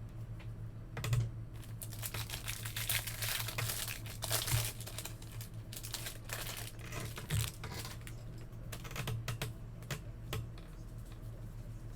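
Trading cards being handled and sorted: a quick irregular run of clicks with plastic crinkling and sliding, densest a couple of seconds in, over a steady low hum.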